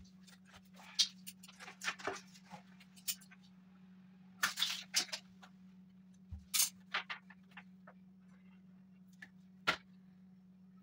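Red plastic tape film being handled, pulled and snipped with scissors: scattered crinkles and sharp clicks, the loudest crackly bursts about four and a half seconds in and near the end, over a steady low hum.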